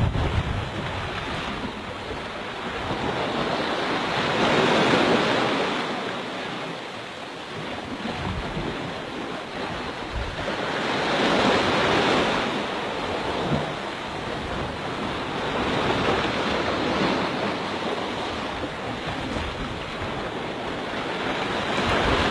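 Small waves washing up onto a sandy beach, the surf swelling and falling back every five to seven seconds.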